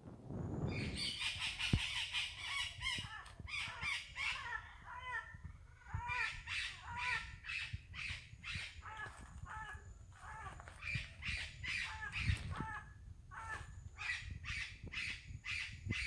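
A flock of parrots squawking: many short, harsh calls in quick succession, several birds overlapping.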